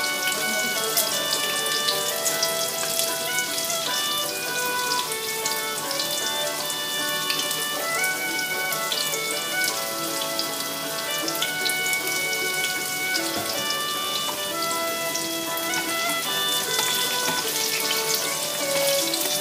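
Tofu cubes frying in hot oil in a pan: a steady, dense crackling sizzle of spitting oil. Soft instrumental background music with held notes plays over it.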